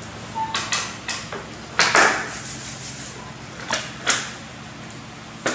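A series of sharp knocks and clatters, several in the first two seconds and two more in the middle, over a low steady hum.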